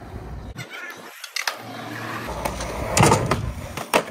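Skateboard wheels rolling on smooth concrete with a steady rumble, broken by a few sharp clacks of the board popping and landing, the loudest about three seconds in.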